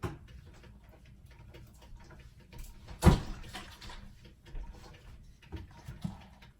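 A few separate knocks and clicks, the loudest a sharp knock about three seconds in.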